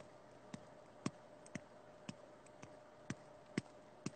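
Faint, irregular clicks, roughly two a second, over a faint steady hum.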